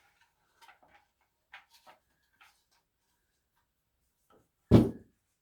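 Faint scattered clicks and rustles, then one loud short thump near the end.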